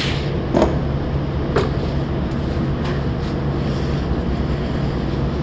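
Steady mechanical hum and noise of the shop background, with a few light knocks in the first two seconds as the engine and rag are handled.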